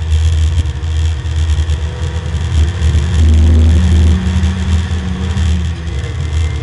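Porsche 924 race car's four-cylinder engine under load, accelerating on track, heard from inside the cabin as a heavy low drone whose pitch rises a little near the middle.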